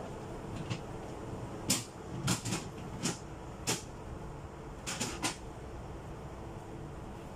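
Sharp knocks and clicks of refrigerator fittings being handled: about eight, from under two seconds in to just past five seconds, some in quick pairs. A steady low hum runs beneath them.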